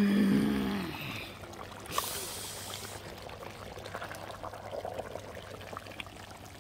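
A ladle scoops stew and broth from a large kazan and pours it onto a plate, with liquid pouring and dribbling. It opens with a short drawn-out vocal exclamation, and about two seconds in a click is followed by a second of hiss.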